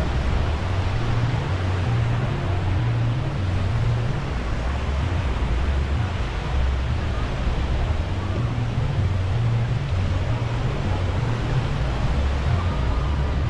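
Wind buffeting the microphone in an uneven low rumble, over a steady wash of surf and faint scattered voices of beach-goers.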